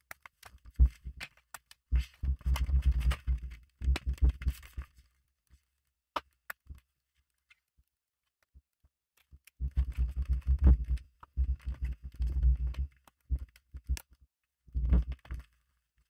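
Hands pressing and working around a laptop's keyboard panel to snap its plastic clips back into the chassis: clusters of dull knocks and rubbing, with a few sharp clicks in between.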